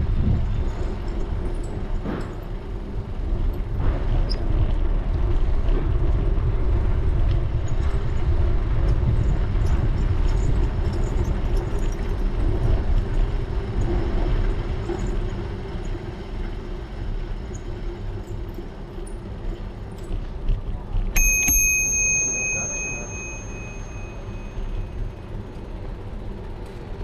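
Bicycle riding on a paved street, with steady wind and road rumble on the mic, louder over the first part. About twenty seconds in a bicycle bell is rung once, its ding ringing on for a few seconds.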